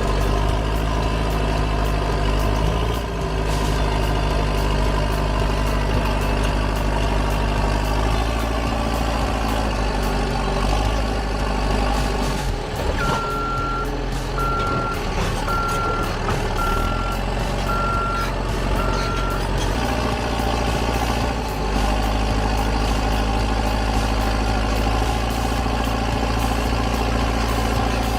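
Heavy diesel machine engine running, its pitch shifting now and then as the load changes. Partway through, a reversing alarm beeps about seven times, roughly once a second.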